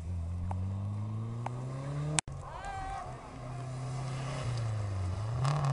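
Rally car engine accelerating hard, its pitch climbing steadily, cut off abruptly about two seconds in. Then a second rally car, a Renault Super 5, running at steady revs past, dropping briefly and pulling up again near the end, with a brief voice just after the cut.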